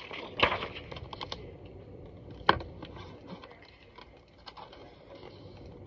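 Computer keyboard typing: irregular clicks and taps, with two louder knocks about half a second and two and a half seconds in.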